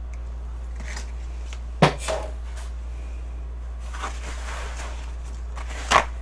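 A kitchen paper towel roll being handled, with a couple of sharp knocks as things are picked up and set down. About four seconds in, paper rustles as sheets are pulled off the roll, ending in a sharp click near the end.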